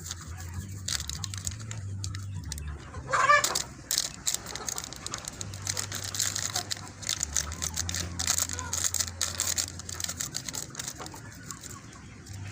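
Chickens clucking in a coop, with one loud squawk about three seconds in, over a scatter of small clicks and knocks.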